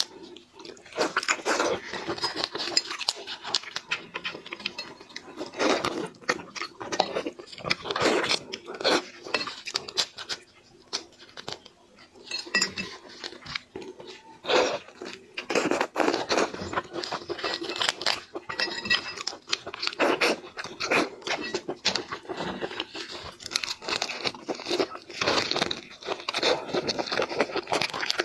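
Close-up eating sounds of seafood: irregular crunching and chewing with many quick wet clicks, in bursts throughout.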